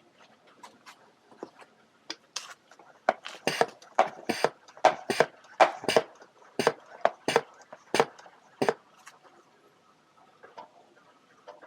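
A series of sharp clicks and knocks, sparse at first, then loud and irregular at about two a second through the middle before dying away.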